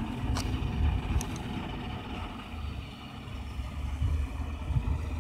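Outboard motor of a small fishing boat running steadily as the boat moves off across the water, heard as a low rumble.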